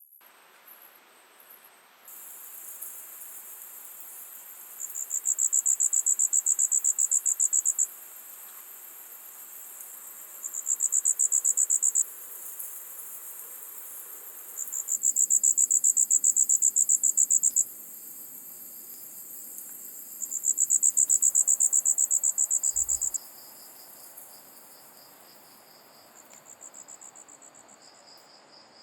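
Insects calling: a steady high-pitched chorus, with one loud, rapidly pulsed trill coming in four bursts of two to three seconds each, then more faintly near the end.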